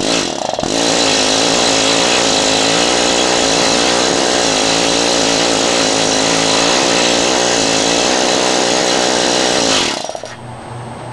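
Planishing hammer running steadily, its dies rapidly pounding a length of old 12-gauge THHN solid copper wire to split the stiff insulation off. It stops abruptly about ten seconds in.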